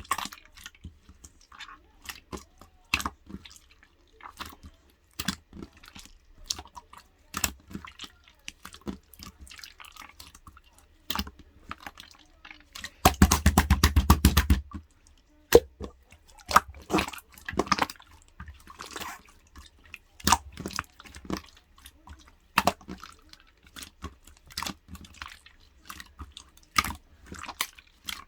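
Light-green clear slime being squished and poked by hand, making wet, sticky clicks and small air-bubble pops at an uneven pace. About 13 seconds in comes a fast run of crackling pops lasting over a second, the loudest part.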